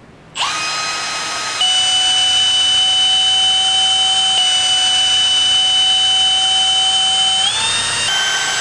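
Electric drill boring a small hole through PVC sump pump discharge pipe: the motor whines up about half a second in, then drops in pitch and gets louder as the bit bites into the pipe at about a second and a half, holding steady until its pitch rises again near the end.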